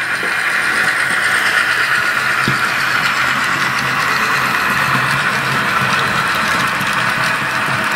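HO-scale BN GP30 model locomotive with an ESU sound decoder, its speaker playing a diesel engine running steadily as the train passes. The sound swells in the first second and then holds, with light clicking from the rolling stock on the track.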